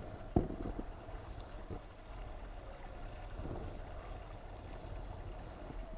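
Wind buffeting a helmet-camera microphone and water rushing past the hull of an RS600FF foiling dinghy sailing at about 13 knots, with a faint steady hum underneath. A single sharp knock comes about half a second in.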